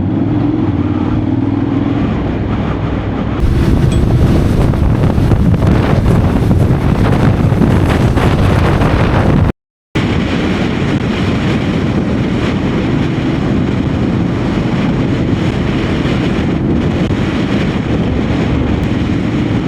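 Honda X-ADV 750 parallel-twin engine running while the bike is ridden, with a steady wind rush on the microphone that gets louder about three seconds in. The sound cuts out completely for a moment about halfway through.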